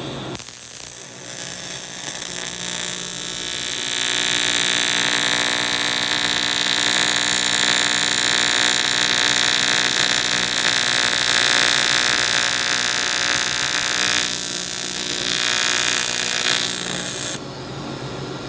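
AC TIG welding arc on aluminum from a balled pure tungsten electrode, a steady electric buzz with a hiss on top. It strikes right at the start, grows louder a few seconds in, and cuts off suddenly near the end.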